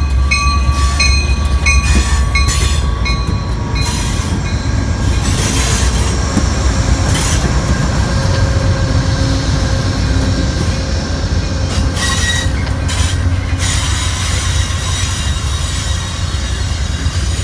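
Amtrak passenger train passing slowly: two GE P42 diesel locomotives running by, then the baggage car and bilevel Superliner cars rolling past with a steady low rumble and wheels squealing on the rails. A bell rings in quick strokes during the first few seconds.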